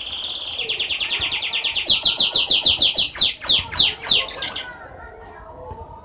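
Domestic canary singing: a fast trill of repeated high notes, then a few louder, slower downward-sweeping notes, stopping a little before the end.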